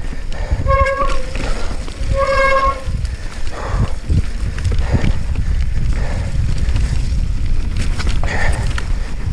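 Mountain bike riding fast over rough moorland grass: a continuous low rumble of wind on the camera microphone and the tyres and frame over bumpy ground. Two short steady tones sound about a second apart near the start.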